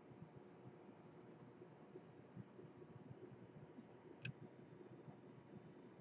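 Near silence: room tone with a faint steady hum, a few faint high ticks in the first three seconds, and one sharp click about four seconds in.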